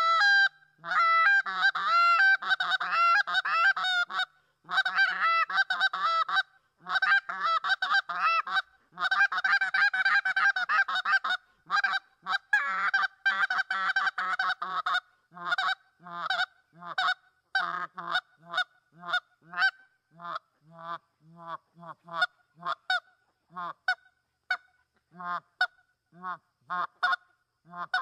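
Reed Canada goose call blown by mouth in a short calling routine: fast runs of honks and clucks for about the first eleven seconds, then single short honks spaced out at about one or two a second.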